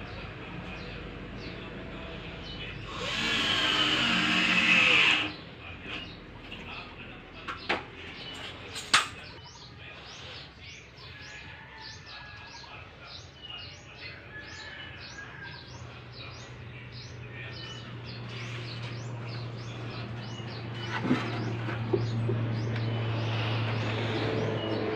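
A cordless drill runs for about two seconds, then a few sharp knocks. After that a bird chirps over and over, about two chirps a second, over a low steady hum that grows louder near the end.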